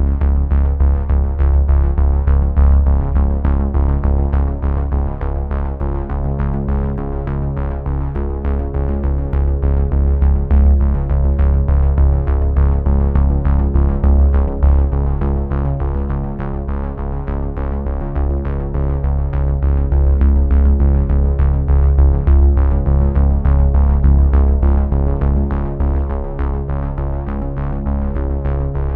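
Background music: synthesizer chords over a steady beat.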